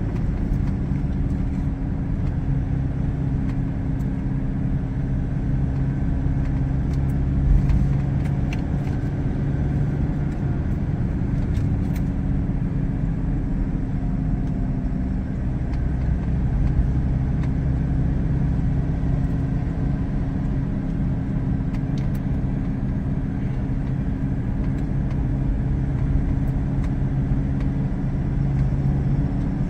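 Car driving at speed on an expressway, heard from inside the cabin: a steady rumble of engine and tyre road noise with a low hum.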